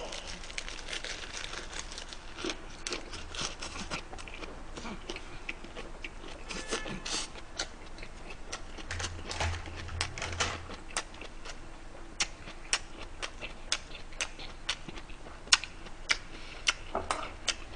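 Close-miked chewing of a big mouthful of lettuce-leaf ssam wrap with pork, rice and kimchi: irregular wet, crunchy mouth clicks, several a second.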